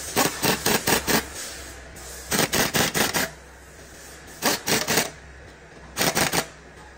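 Pneumatic impact wrench hammering on a bolt in four rapid strings of short trigger blips, each string lasting about half a second to a second.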